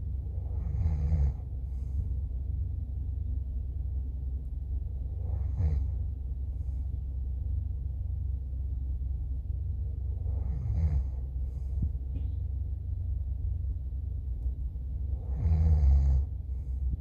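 A person snoring in sleep: four long snores about five seconds apart, each a low rattling tone that falls in pitch, over a steady low rumble.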